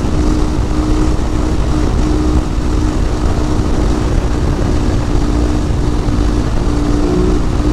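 Husqvarna 701 supermoto's big single-cylinder engine running at steady revs while cruising, heard from inside the rider's helmet under heavy wind noise. The engine note holds one constant pitch throughout.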